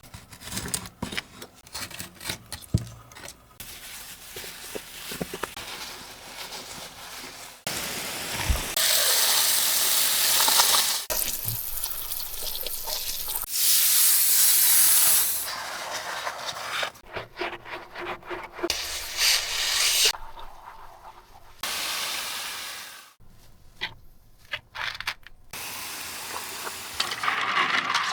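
Keyboard-cleaning sounds in short, cut-together segments: light clicks and scratches for the first several seconds, then long bursts of hissing spray, each starting and stopping suddenly.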